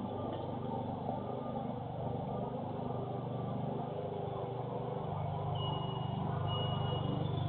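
Alarm going off: a high, broken beeping tone comes in about five and a half seconds in, over a steady low mechanical hum.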